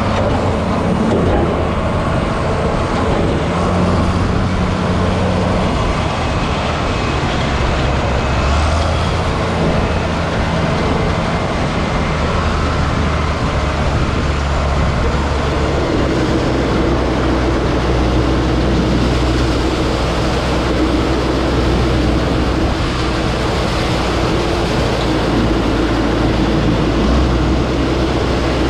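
John Deere 9500 combine running steadily while harvesting soybeans: a continuous engine and threshing-machinery drone, its low hum shifting slightly in pitch about halfway through.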